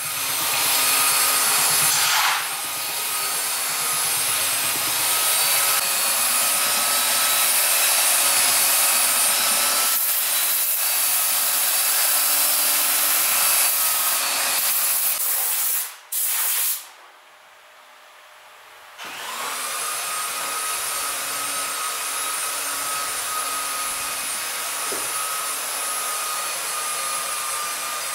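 Handheld electric belt sander running steadily over a wooden board. After a short quiet break about two-thirds of the way through, the motor of a gantry woodworking machine spins up with a rising whine and runs steadily.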